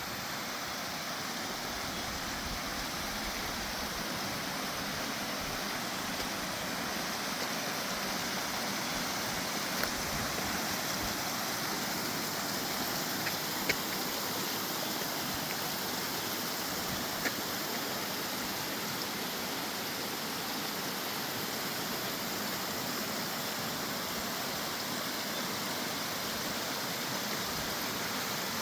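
Steady rush of running water in a small river, with a few faint clicks.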